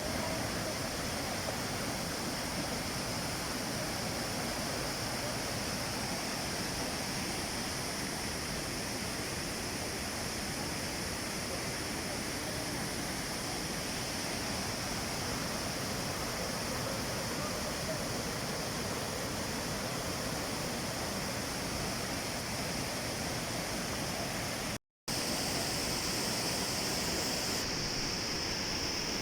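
Steady rushing water, an even noisy roar without breaks. About 25 seconds in it cuts out for an instant, then returns with a brighter hiss.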